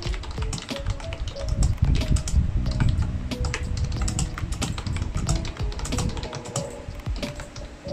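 Typing on a Meewoo wireless mechanical keyboard with round typewriter-style keycaps: a quick, uneven run of key clicks and clacks. Soft background music plays under it.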